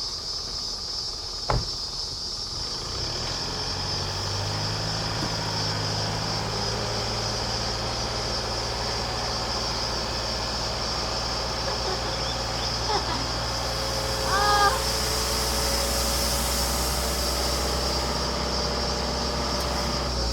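A vehicle engine idling steadily, setting in a few seconds in after a sharp click.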